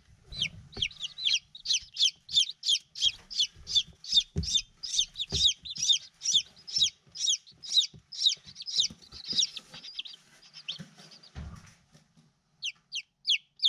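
Five-day-old chicks peeping steadily: a rapid string of high, falling cheeps about three a second, pausing briefly near the end before starting again. A few soft knocks sound underneath.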